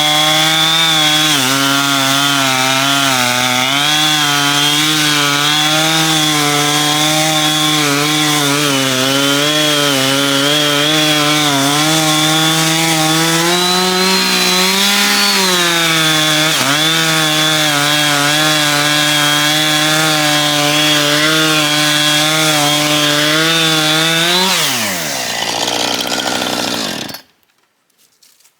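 Two-stroke chainsaw with its stock chain running at high revs while cutting through a log, the engine pitch wavering under load. Near the end the throttle is released, the revs fall away, and the sound stops abruptly.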